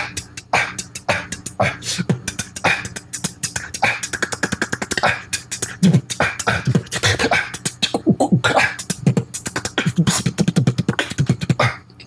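A man beatboxing a fast, technical beat, with quick sharp strikes several times a second mixed with short low sung notes. The snare is the cough snare, a short sharp cough pushed from the diaphragm.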